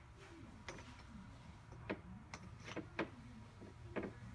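Light metal clicks and taps, about six spread irregularly, as power-valve parts are handled and slid into a KTM two-stroke cylinder, over a steady low hum.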